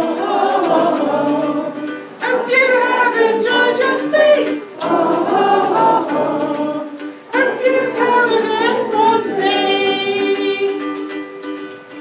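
A singer performing a song while strumming chords on a ukulele, with brief pauses between phrases.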